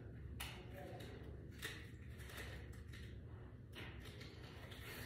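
Faint, intermittent rustling and crinkling from hands working tinsel garland and a puffer jacket while the garland is wrapped around a metal stair railing, over a steady low hum.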